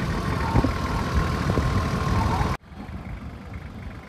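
Nissan Safari 4x4 engine idling steadily, with a few light knocks over it. The sound drops off suddenly about two and a half seconds in to a much quieter background.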